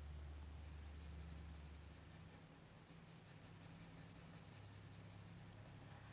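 Faint scratching of a felt-tip marker drawing strokes on paper, in two spells of colouring.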